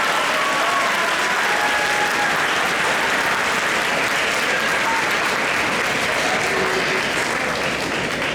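Audience applauding steadily, easing a little near the end.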